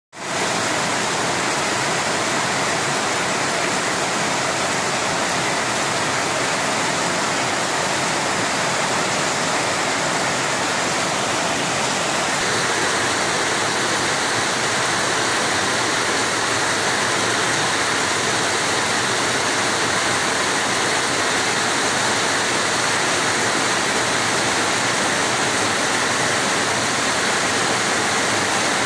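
Heavy monsoon rain pouring steadily on trees and garden: a dense, even hiss with no let-up.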